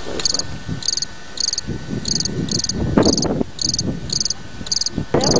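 A cricket chirping in an even rhythm, about two short high chirps a second, over an irregular low rumble that is loudest about three seconds in.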